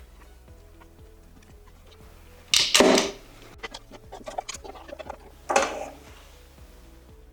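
Background music, over which two loud knocks and a run of small clicks and clatters of tools and parts being handled are heard.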